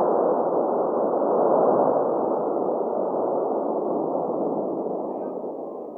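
A muffled, noisy sound effect with no clear pitch, like a long rumbling tail, fading slowly away over several seconds.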